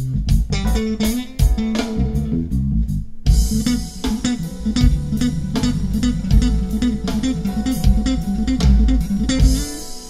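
Polk Audio Signature S20 bookshelf speaker playing a bass-guitar-led track with drums, picked up by condenser microphones in the room. The music stops for a moment about three seconds in.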